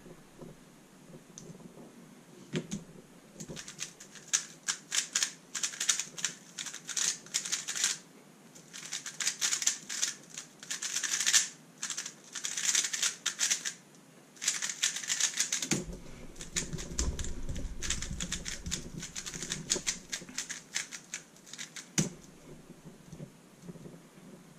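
Thunderclap v3 M 3x3 speedcube being turned at speed: dense runs of rapid plastic clicks with brief pauses, a low rumble under the turning for a few seconds past the middle, and one sharp click near the end.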